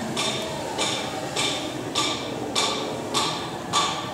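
Seven evenly spaced metallic strikes, about one every 0.6 seconds, each with a brief ring, over a steady background noise; the last strike, near the end, is the loudest.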